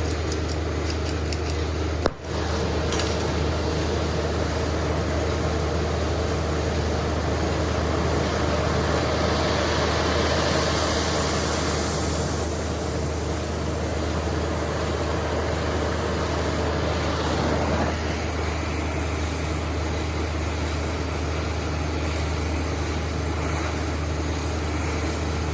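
Steady hiss of a gas torch flame heating the metal around a seized broken bolt to loosen it, with a brief click about two seconds in.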